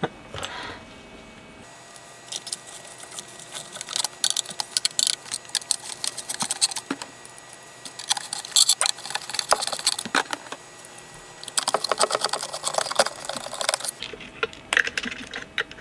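Quick clicks and small rattles in several bursts, from hands working parts and wiring into place inside a speaker cabinet during reassembly.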